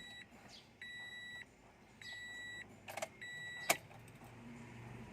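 A car's electronic warning beeper sounding repeatedly: a steady high beep of about half a second, repeating roughly every second and a bit, with a couple of sharp clicks near the end.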